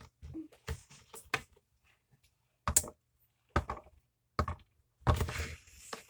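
Marbles being placed into and rolling around a silicone pop-it fidget toy: scattered light knocks and clicks, with a short run of clatter near the end.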